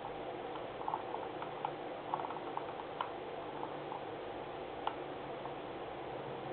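Small, irregular ticks of a computer mouse scroll wheel, some in short quick runs and some single, as a document is scrolled, over a steady low hum.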